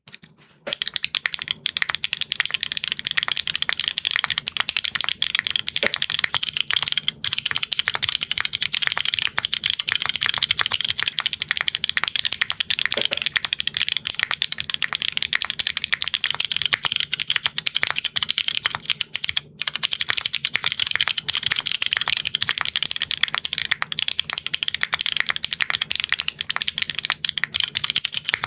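Fast, continuous typing on a mechanical keyboard fitted with linear switches: a dense run of key clacks, with a momentary break about two-thirds of the way through.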